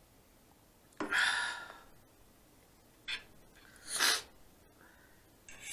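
A woman's sharp breathy exhale about a second in, then a few short sniffs through the nose. She is stuffed up and trying not to sneeze.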